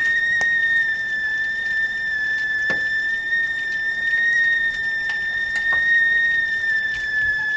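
Stovetop tea kettle whistling at the boil: one steady, high-pitched whistle that wavers slightly in pitch, with a few faint ticks now and then.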